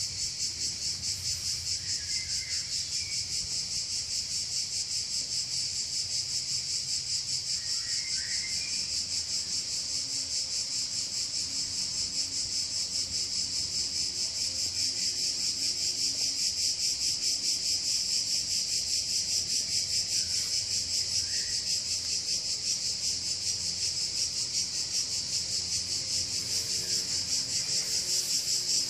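Chorus of insects trilling: a steady, high, fast-pulsing buzz that grows slowly louder.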